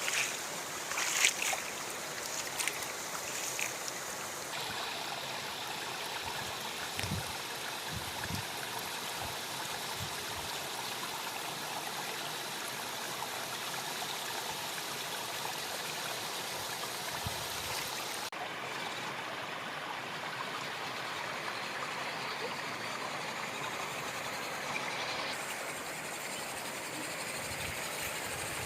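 Steady rush of a stream or small waterfall, with a few sharp clicks in the first couple of seconds.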